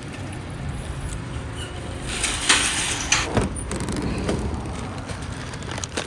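Metal shopping cart rattling as it rolls over parking-lot asphalt and is pushed into a cart corral, with a couple of sharp metallic knocks about two and a half and three and a half seconds in.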